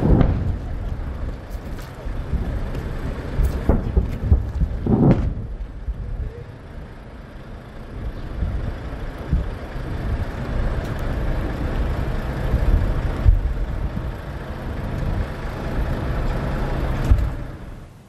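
Outdoor phone-microphone recording dominated by wind buffeting and low rumble, broken by a few sudden thuds about four to five seconds in.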